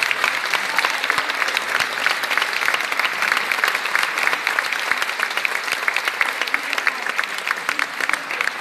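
Theatre audience applauding, a dense steady round of hand clapping that begins to thin out near the end.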